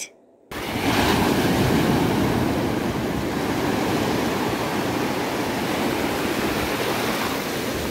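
Sea surf washing up a sandy beach, a steady rush of breaking waves and foam that starts abruptly about half a second in.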